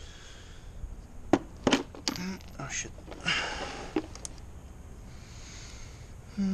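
Scattered sharp clicks and clinks from a plastic socket-set case being opened and steel sockets being picked out of it, with a short scrape in the middle.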